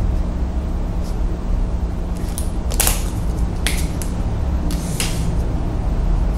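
Highlighter pen dragged across paper in a few short scratchy strokes, the loudest about three and five seconds in, over a steady low hum.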